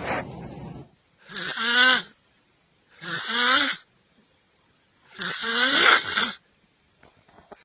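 A person snoring: three loud snores about two seconds apart, each a breathy rasp with a wavering pitched note in it.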